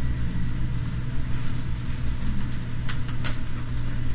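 Steady low room hum, with a quick run of keyboard key clicks about three seconds in as a short command is typed.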